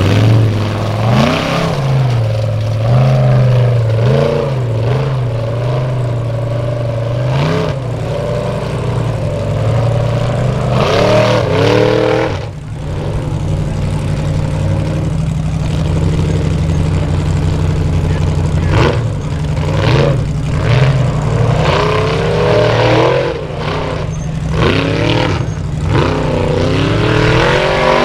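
Formula Offroad buggy engines revving hard in repeated rising and falling bursts as the cars claw up steep dirt slopes, over a steady low engine drone.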